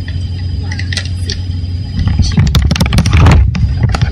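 Plastic household items being handled and knocked together, a burst of rattling and rustling about two seconds in that lasts a second and a half, over a steady low hum.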